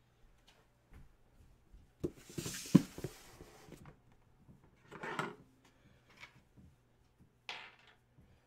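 A cardboard box rustles as it is slid onto a wooden tabletop and set down with a sharp knock about three seconds in. Softer scuffs of the box being handled follow.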